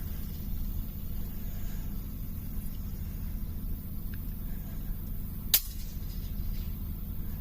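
A single shot from a suppressed Remington 700 rifle in 6.5 Creedmoor: one sharp, short crack about five and a half seconds in, over a steady low rumble.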